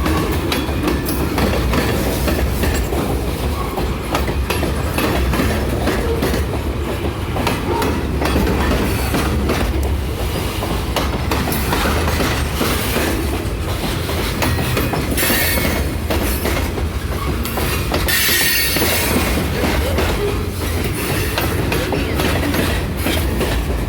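Freight train's grain cars rolling past at close range, steel wheels clacking over the rail joints, with high wheel squeal rising briefly about 15 seconds in and again near 18 seconds.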